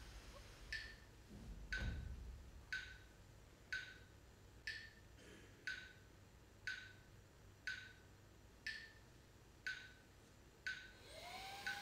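A sharp, dry tick once a second, even as a clock or metronome, with a soft low thud about two seconds in. Near the end a held tone slides up and then stays steady.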